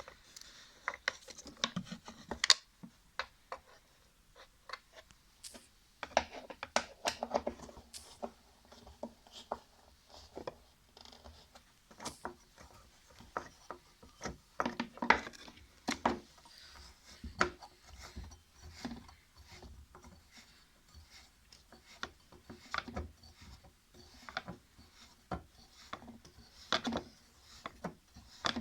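Irregular clicks, taps and scraping rubs of plastic and metal washing-machine parts and hand tools being handled during reassembly.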